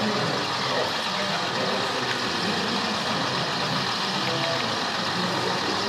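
Steady diesel engine sound from a sound-fitted OO gauge model track-maintenance machine running slowly along the layout, mixed with the chatter of an exhibition hall.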